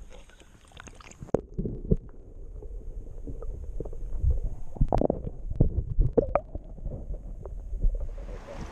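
Muffled underwater rumbling and sloshing heard through a camera microphone submerged in river water, the highs cut away, with scattered knocks and several louder thumps.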